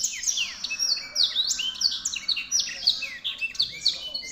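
Black-throated canary (blackthroat) singing a fast, unbroken song of quick chirps and sweeping whistles, high-pitched and varied.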